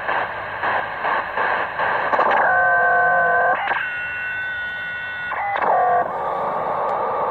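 Tecsun PL-600 shortwave receiver in SSB mode being tuned across the 18.1 MHz band: static hiss with flickering crackle, then steady whistling tones of several pitches that jump higher once, briefly glide, and give way to hiss again near the end.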